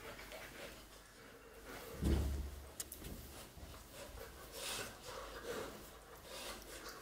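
A German Shepherd puppy and a young German Shepherd wrestling in play, with short puffs of breath and sniffing, and one low thump about two seconds in.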